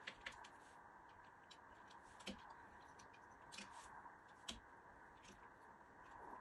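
Faint, scattered clicks and taps of small plastic parts being handled as an Arlo video doorbell is fitted back into its casing.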